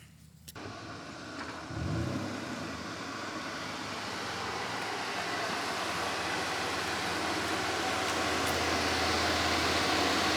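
2008 Nissan Altima starting up about two seconds in, then running as it is driven: a steady rushing engine and road noise that slowly grows louder.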